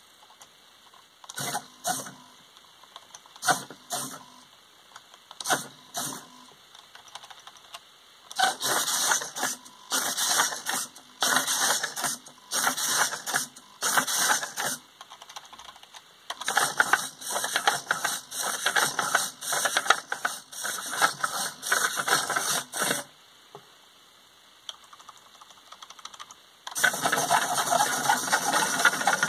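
Small hobby servo motors of a four-legged walking robot whirring and rattling in bursts. There are three pairs of short bursts at first, then runs of bursts about a second long as the legs step, a pause, and a louder, nearly continuous run near the end.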